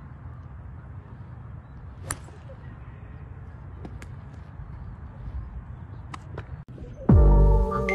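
A golf iron striking a ball off a range mat about two seconds in, one sharp click, with a few fainter clicks of strikes later on over a steady low outdoor background. Loud music comes in near the end.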